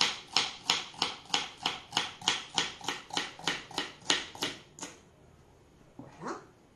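Kitchen knife chopping celery on a wooden cutting board, a steady run of crisp knocks about three a second that stops about five seconds in.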